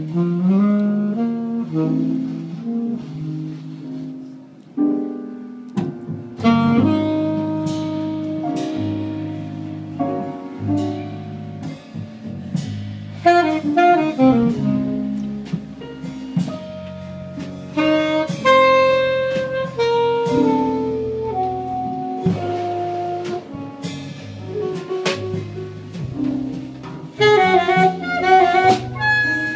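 A live jazz band playing. A plucked double bass line carries the first few seconds; about six seconds in, the saxophone and drums come in with the full band.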